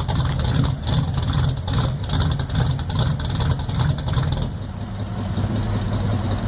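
Classic car engine running at low speed with a low rumble, settling to a steadier idle about four and a half seconds in.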